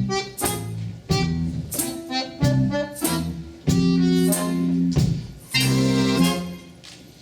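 Accordion playing a lively piece in chords, a run of short, detached chords followed by longer held ones, the last fading away near the end.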